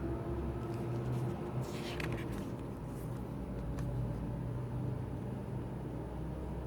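Paper booklet pages being turned: a short rustle about two seconds in, then a couple of faint clicks, over a steady low background hum.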